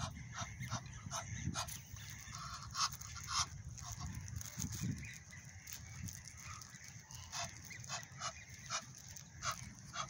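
A pair of Egyptian geese calling with many short, harsh honks, some in quick runs, fewer around the middle. A low rumble runs underneath, like wind on the microphone.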